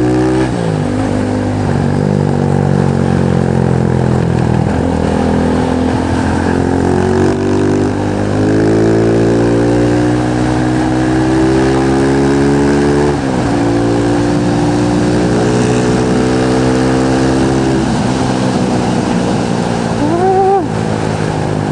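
Motorcycle engine pulling along under way, its pitch climbing steadily and dropping back several times as it shifts gear, over wind rush.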